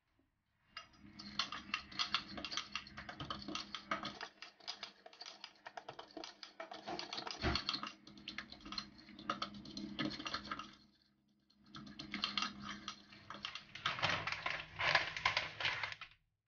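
Metal fork stirring a sticky batter of butter, egg yolk and grape molasses in a glass bowl: a fast, continuous run of clicks and scrapes of the fork against the glass. There is one dull knock about halfway through and a short pause about eleven seconds in.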